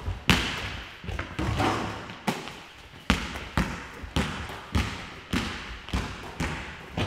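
Basketball bouncing on a sports hall floor during play: a steady dribble of roughly one to two bounces a second, each thud ringing on in the echoing hall.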